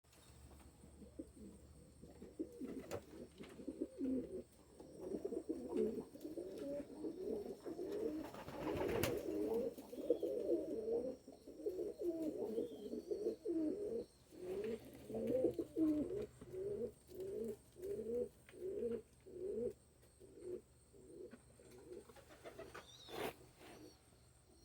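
Pigeons cooing in a long run of low calls, thickest in the middle, then settling into a regular series of about two coos a second that fades away. Two sharp clicks stand out, one about nine seconds in and one near the end.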